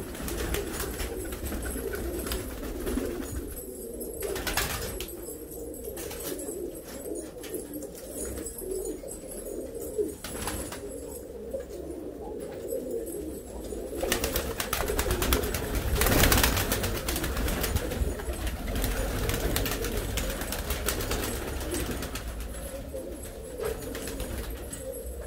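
A flock of Pakistani high-flyer pigeons cooing continuously, with scattered sharp clicks and flutters. A rushing noise swells in the middle and is loudest about two-thirds of the way through.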